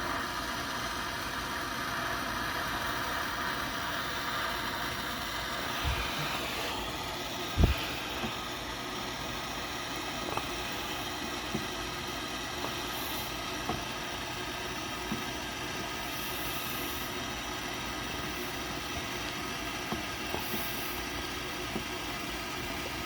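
Small handheld torch burning with a steady hiss while it heats the chisel used to melt the plastic. A few light knocks and clicks, the loudest about eight seconds in.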